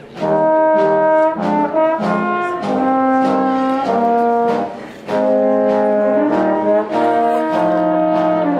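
Brass ensemble playing a slow passage of held chords, with the notes changing every second or so and a brief pause about five seconds in.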